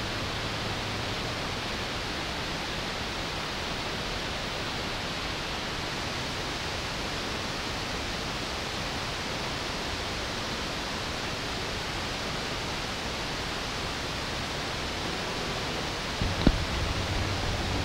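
Steady wash of hiss-like electronic noise from a live circuit-bent, computer-less electronic setup. Near the end a low hum comes in, with a single sharp click.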